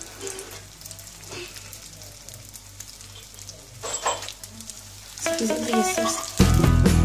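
Crepe parcels frying in shallow oil in a nonstick pan: a soft sizzle with scattered crackles, one sharper about four seconds in. Background music comes in about five seconds in and grows louder.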